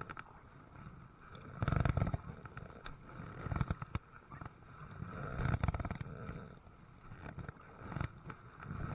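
Kayak paddle strokes in the water, a swish and splash with a low rumble about every two seconds.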